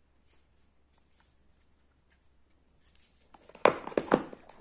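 Handling noise from a DJI OM 4 smartphone gimbal being picked up and turned over: faint clicks at first, then a short run of loud plastic clacks and rustles near the end.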